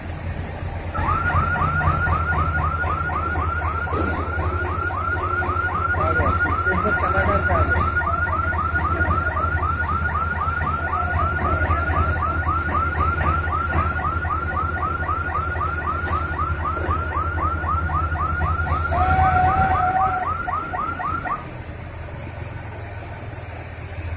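A crane's electronic warning alarm chirping over and over, each chirp a short falling tone, about three and a half a second. Under it the diesel engine of a mobile crane drones steadily as the crane works a lift. Both the alarm and the engine drone stop about three seconds before the end.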